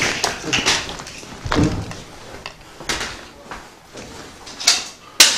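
Footsteps and the knocking and scuffing of gear as a player moves over a debris-strewn floor, with a sharp, loud click near the end.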